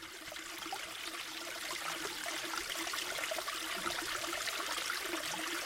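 A mountain stream babbling steadily, fading in over the first few seconds.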